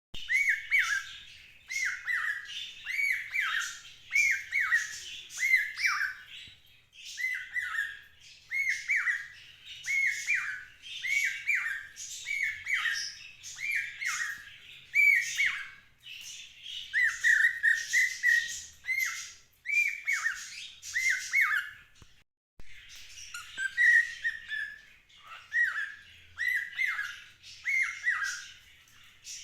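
Cockatiel mimicking a cuckoo's call: a long run of short whistled notes, each arching up and dropping in pitch, repeated in quick succession with raspy chatter over them. There is a brief pause a little past two-thirds of the way through.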